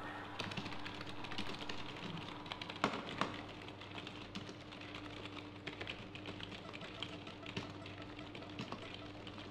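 Typing on an old beige computer keyboard: a run of rapid, irregular key clicks, with a couple of harder key strikes about three seconds in, over a steady low hum.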